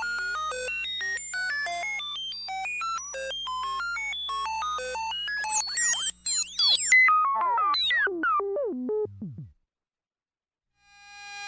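Synthesized electronic tones: quick beeps jumping between random pitches, several a second, then a tangle of falling pitch sweeps that drop away and stop about nine and a half seconds in. After a second of silence, the tones fade back in near the end.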